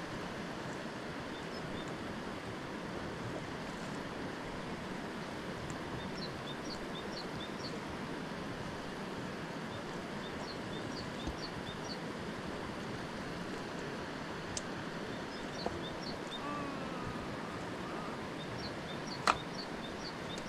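Steady rushing outdoor background noise, with short runs of high chirps every few seconds and a single sharp knock near the end.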